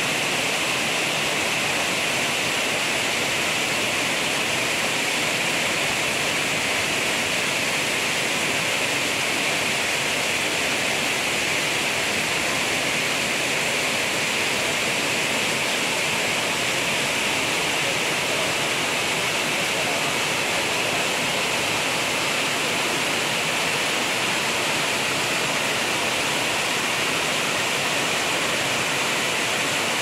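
Steady rush of water pouring over rocks in a waterfall stream.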